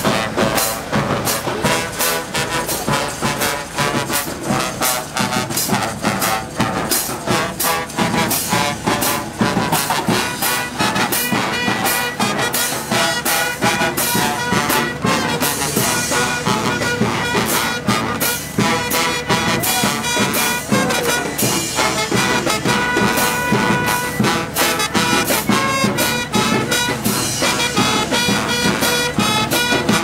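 Brass street band playing an up-tempo tune: horns over a fast, steady drum beat.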